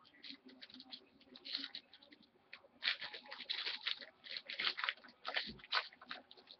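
Trading cards being slid and flicked against one another by hand as a small stack is thumbed through: quick papery scrapes and flicks, coming thickest in the second half.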